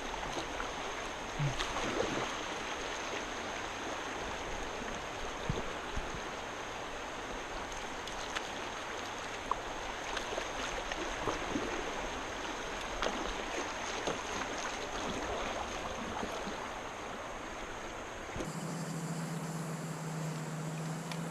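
River current rushing and splashing around a kayak running fast water, with scattered small knocks and splashes. Near the end the water sound cuts off abruptly and a steady low hum takes over.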